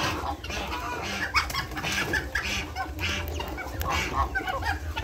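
Chickens clucking: a run of short, irregular calls coming several times a second.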